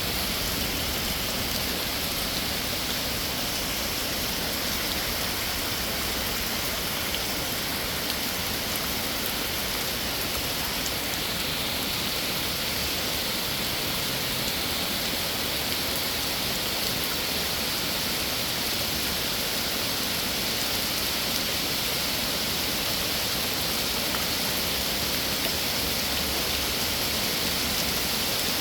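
Heavy rain coming down steadily, an even, unbroken hiss of rain on the pond and its surroundings.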